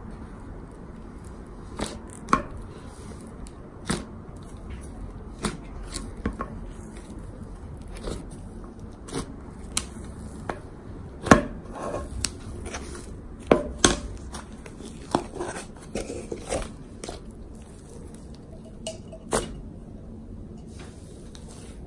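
Thick slime and a layer of soft clay being pulled out of a plastic jar and kneaded together by hand, with irregular sharp sticky pops and clicks as it stretches and tears, the loudest about halfway through.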